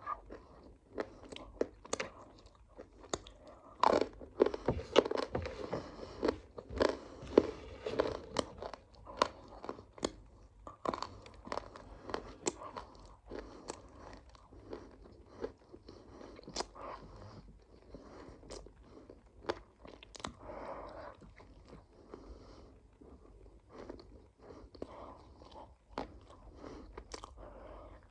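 A person biting and chewing crunchy food, with many sharp, irregular crunches, loudest and densest from about four to nine seconds in, then softer chewing.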